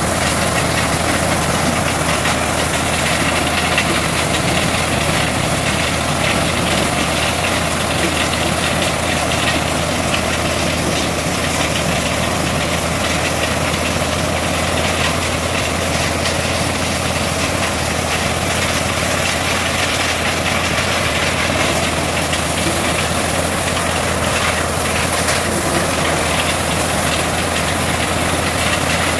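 Ford tractor engine running steadily under load, driving a tractor-mounted corn sheller that is stripping kernels from the cobs, with the sheller's continuous threshing noise over the engine.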